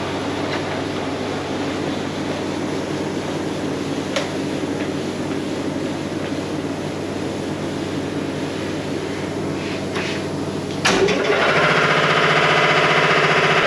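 A machine's motor running with a steady hum, and a sharp click about four seconds in. About eleven seconds in, a louder, denser sound with many steady tones suddenly cuts in.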